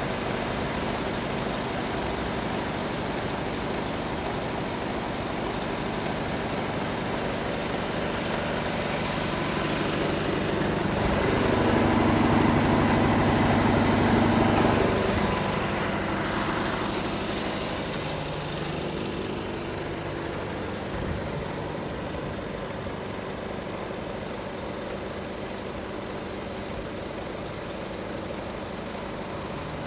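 Mercedes Actros 1843's 430 bhp Euro 6 straight-six diesel engine idling steadily. It grows louder for a few seconds in the middle, then settles back to a steady idle.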